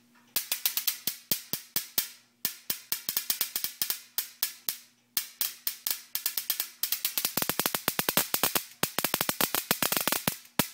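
Sharp snapping of high-voltage sparks jumping at the ignition coil as a capacitive-discharge ignition box (MSD) fires each time its magnetic pickup input is shorted by hand. The snaps come irregularly, several a second, in three runs with brief pauses and faster toward the end. They are the sign that the repaired box, with its new MOSFET and suppressor diode, is firing properly.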